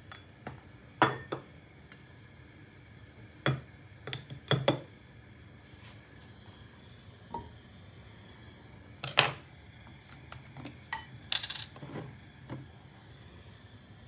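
Kitchen utensil sounds: a knife clinking and scraping on a glass butter dish as butter is cut, then knocks and clinks of the butter and utensils at a frying pan on a gas stove. About a dozen separate clinks and knocks, the sharpest about eleven seconds in, over a faint steady hiss.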